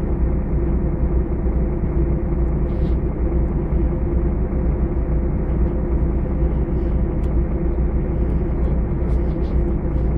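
Steady low hum and rumble of a city bus's engine, heard from inside the cabin as the bus stands or crawls in heavy traffic.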